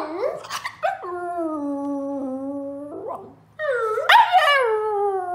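French bulldog howling: a short call at the start, then two long drawn-out howls, each sliding slowly down in pitch.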